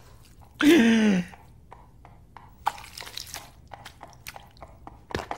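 A cartoon character's voice makes one short sound that slides down in pitch about half a second in. It is followed by faint, scattered clicks and smacks, with a sharper knock near the end.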